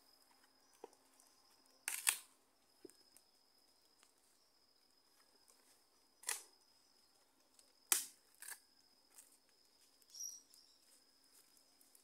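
A small campfire of damp sticks and leaves popping and cracking: a handful of sharp snaps spread irregularly, the loudest a double crack about two seconds in, over a faint steady high whine.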